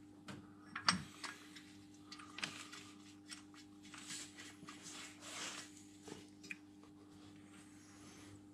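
Faint clicks and knocks of a wrench and hands working at the distributor of a Mopar 440 V8 that is not running, the loudest knock about a second in, over a steady low electrical hum.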